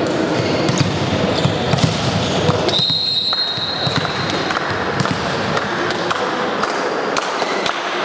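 Referee's whistle blown once, a single steady high note of under a second about three seconds in, over the general noise of a large sports hall with scattered thuds of a volleyball bouncing on the floor.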